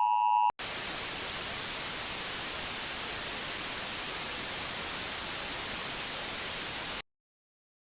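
The last half second of an Emergency Alert System-style two-tone attention signal, which cuts off abruptly. It is followed by a steady hiss of white-noise static that stops dead about seven seconds in.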